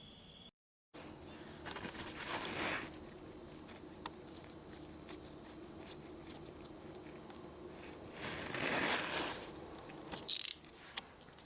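A faint, steady high-pitched insect trill, with two louder swells of rustling noise, around two seconds in and near nine seconds.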